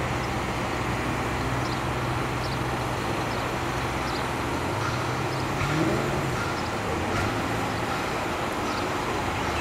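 Road traffic: a steady hum of passing motor vehicles, with one engine's note rising and peaking about six seconds in.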